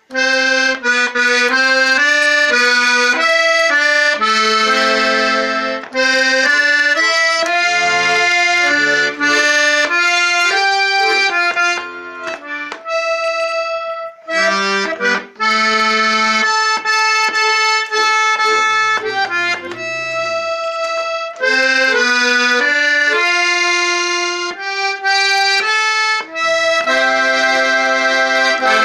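Russian garmon (button accordion) playing a folk tune with chords and melody together, in phrases broken by short pauses.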